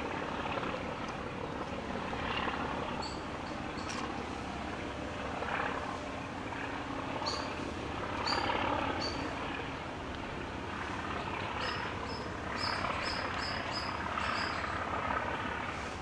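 A steady low rumble of distant city traffic, with short, high bird chirps repeated several times, clustered in the second half.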